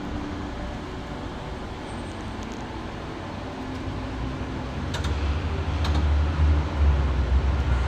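Steady outdoor background noise of traffic and machinery, with a low rumble that grows louder about five seconds in and a couple of faint clicks.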